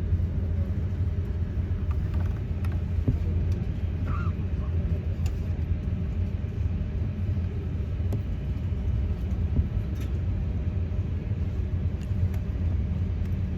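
Steady low cabin rumble inside an Airbus A350-900 on the ground before takeoff, with a few faint clicks.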